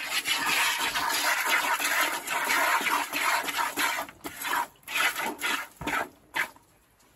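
Goat being hand-milked: streams of milk squirting into a plastic bucket. The squirts come as a fast, almost continuous hiss at first, then break up into single squirts about three a second that die away near the end.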